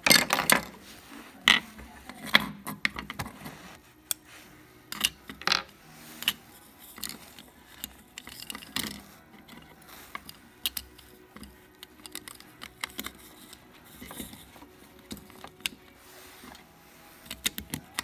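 Irregular clicks and small plastic clatter from hand-handling garage door opener remotes: a remote's case being opened and a coin battery being taken out and fitted into another remote. The clicks come thickest in the first few seconds and again about five and nine seconds in.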